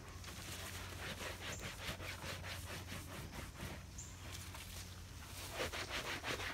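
An old upholstered camper cushion rubbing and scraping against the trailer doorway as it is hauled out, with the crinkle of a disposable coverall. The rustling comes in a run of quick strokes about two seconds in and again near the end.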